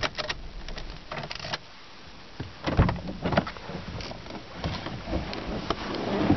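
Handling noises inside a parked 2008 Honda Civic with its engine off: scattered clicks and knocks, with a heavier thump about three seconds in. Near the end the driver's door unlatches and swings open.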